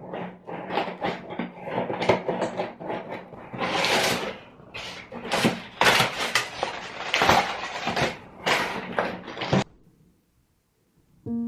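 A busy run of short knocks, clatters and rustling swishes of things being handled, which stops abruptly near the end and gives way to a short silence.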